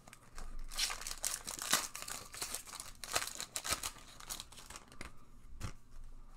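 Shiny foil wrapper of a Tim Hortons hockey-card pack crinkling and tearing as it is picked up and ripped open by hand. The crackling is densest for the first few seconds, then eases into lighter rustling as the cards are pulled out.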